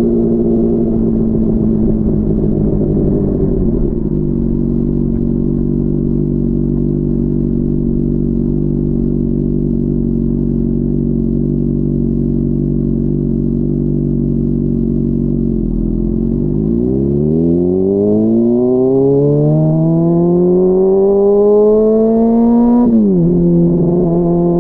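Honda CBR600RR's inline-four engine easing off and settling to steady low revs for about twelve seconds, then accelerating hard with the revs climbing for several seconds, and dropping sharply near the end on an upshift.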